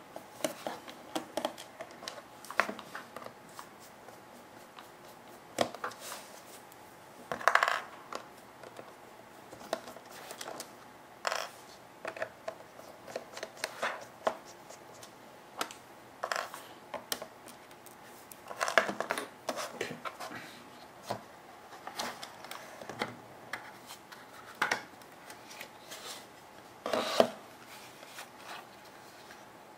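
A small screwdriver and hands working on the plastic shell of a Silicon Power Rugged Armor A30 external hard drive case: scattered clicks, taps and scrapes as the case is pried and unscrewed, tiny screws are set down and the shell is opened. A few longer scrapes stand out among the clicks.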